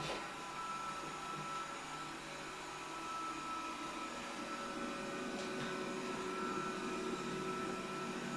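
Robot vacuum cleaner running, a steady whirring hum with a thin high whine.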